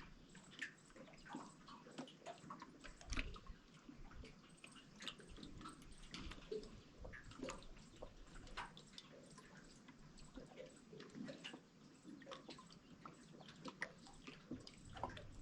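Faint, irregular drips and small ticks of water, with one slightly louder drop about three seconds in.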